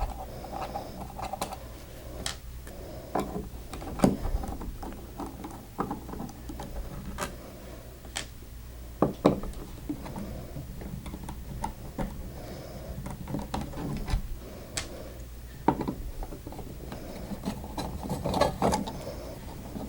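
Screwdriver backing the screws out of a switch wall plate: irregular small clicks and scrapes of metal on metal, with a faint steady hum underneath.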